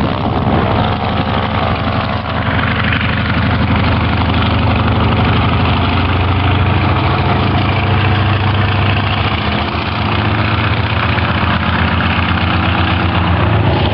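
Antonov An-2 biplane's nine-cylinder radial engine and propeller running steadily as it flies low past. The engine gives an even, pulsing note.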